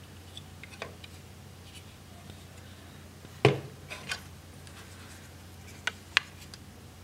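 Hard plastic Lego pieces clicking and knocking as a built model is handled. About three and a half seconds in comes the loudest knock, a dull thud as the model is set down on the table, followed by a few sharp plastic clicks near the end.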